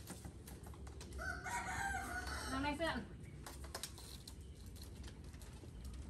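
A single drawn-out animal call, about two seconds long, starts about a second in and falls away at the end, over light scattered clicks and knocks.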